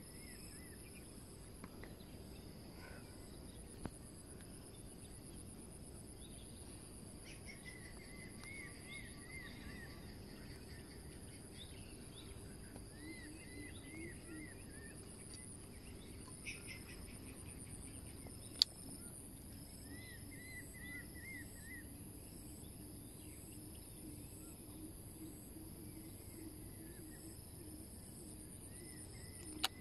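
Open-air ambience: a bird calling in short runs of quick repeated notes every few seconds over a steady high-pitched insect buzz. One sharp click stands out about eighteen seconds in.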